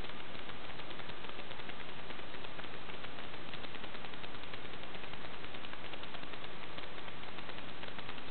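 Snapper riding lawn mower's engine running steadily as the mower drives along, heard as a dense, fast, even ticking.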